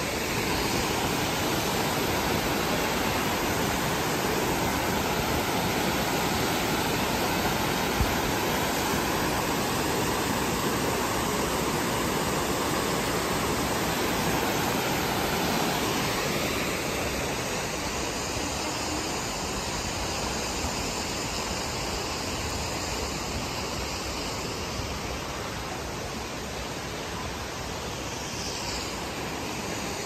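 Fast-flowing river water running over shallow rapids, with a waterfall pouring into it: a steady, even rush of water, a little softer in the second half. One brief knock about eight seconds in.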